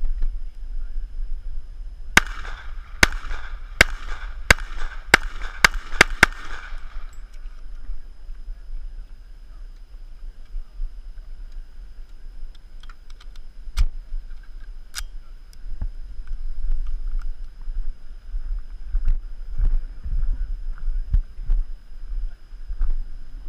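Eight shots from a .45 ACP 1911 pistol, a Springfield Armory TRP Operator, fired in one string over about four seconds, starting about two seconds in and quickening toward the end.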